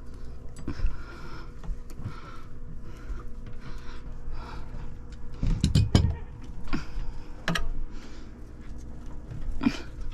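Scattered knocks and clunks over a low steady hum, with a cluster of louder knocks about six seconds in and another sharp knock near the end.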